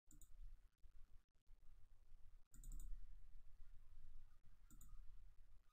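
Faint computer mouse clicks, three brief clusters: one near the start, one about halfway and one near the end, over a low steady hum.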